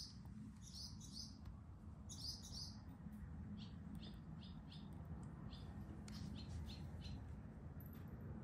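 Small birds chirping outside: clusters of high chirps in the first few seconds, then a quick run of short single chirps around the middle. A faint low hum sits underneath.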